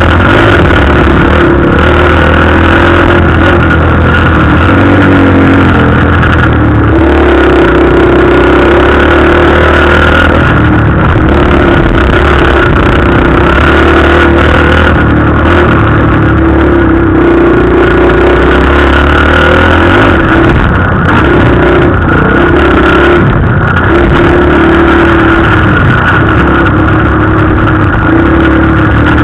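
Dirt bike engine running hard on a motocross track, heard loud from a helmet camera, its pitch rising and falling as the rider opens and closes the throttle through the corners.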